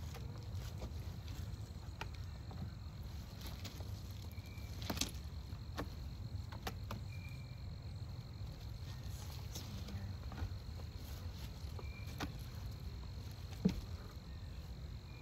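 A steady high-pitched insect trill with a faint short chirp every few seconds, over a low background hum, broken by scattered sharp clicks and knocks of beehive frames being handled, the loudest about five seconds in and near the end.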